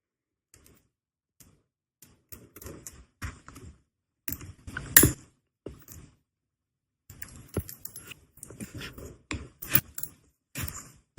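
Scattered small metal clicks, taps and clinks of watchmaker's tools and watch parts being handled, with short pauses between them and the loudest a sharp click about five seconds in.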